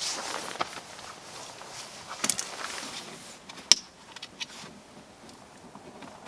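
Small flathead screwdriver working the red locking clip out of a plastic wiring connector: light plastic scraping and scattered clicks, with one sharp click a little before four seconds in.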